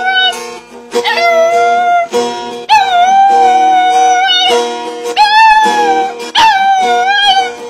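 Dog howling along to music: a run of several long, wavering howls with short breaks between them, over steady struck chords.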